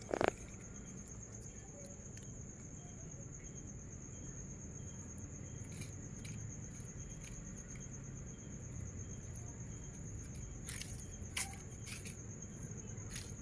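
A steady high-pitched insect trill, pulsing finely and without a break, over a low hum. A loud knock comes right at the start and a few sharp clicks near the end.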